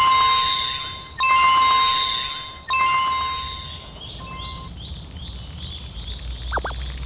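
Cartoon level-crossing alarm effect: a chime-like bell struck three times about a second and a half apart, each strike ringing out. After the last strike comes a quick run of faint rising chirps, and near the end two short swooping whistle glides.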